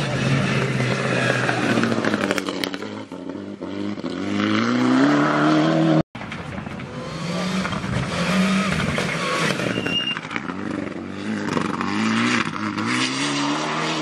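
Two rally cars come in at speed on a gravel stage. First a Toyota Yaris Proto's engine rises in pitch as it accelerates towards the spectators. After an abrupt cut about six seconds in, a Mitsubishi Lancer Evo X rally car's engine rises and falls several times as it drives through gear changes and lift-offs.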